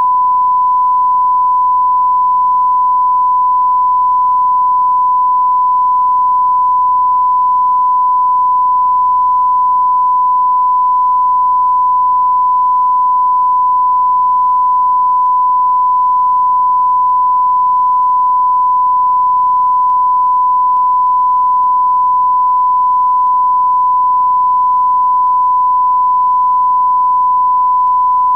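Loud, steady electronic test tone: one pure, unwavering pitch held without a break over a faint background hum, typical of a reference tone recorded at the end of a videotape.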